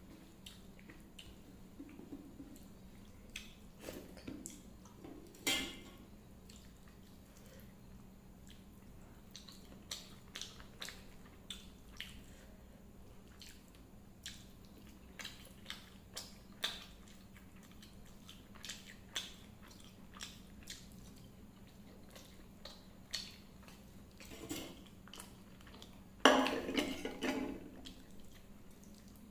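Close-up eating sounds: wet chewing and mouth smacks of rice and dal, heard as scattered short clicks, with a louder noisy burst about a second and a half long near the end. A steady low hum runs underneath.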